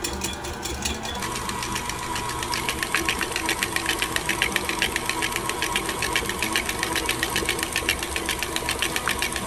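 Electric mixer with its whisk attachment running, whipping butter and cream cheese for icing: a steady motor whine with a rapid, even clatter of the whisk in the bowl that grows stronger after the first second.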